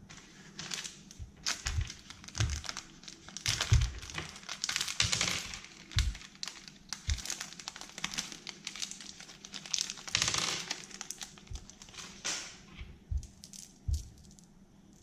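Candy and toy wrappers crinkling and rustling as they are handled and torn open, in irregular bursts with soft knocks from handling.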